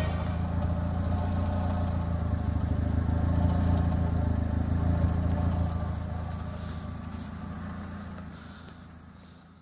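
Exhaust note of a Mitsubishi Lancer C62A's four-cylinder petrol engine idling steadily, heard right at the tailpipe: a low, even drone that fades away over the last few seconds.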